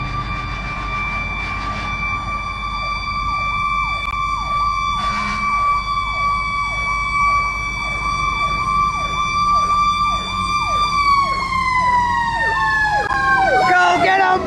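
Emergency vehicle siren passing close by: a held steady tone over a fast-cycling yelp that sweeps down and back about twice a second. About eleven seconds in, both start dropping in pitch as the vehicle goes past. Heard from inside a car.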